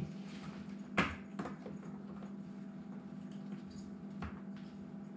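A few sharp clicks and knocks of parts or tools being handled, the loudest about a second in, over a steady low hum.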